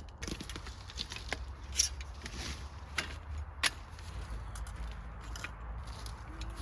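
Irregular sharp clicks and snaps over rustling, with three louder snaps in the middle.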